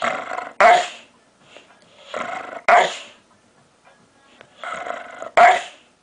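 Dog vocalizing three times, about two seconds apart: each time a short growly grumble breaks into a sharp, loud bark.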